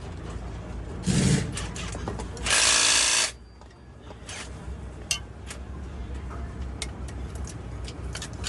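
A power tool running in two short bursts, the second about a second long, followed by scattered sharp metal clicks and taps of workshop handling.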